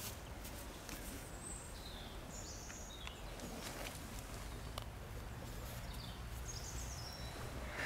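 Outdoor ambience: a steady low rumble of wind with a few short, high bird chirps scattered through it.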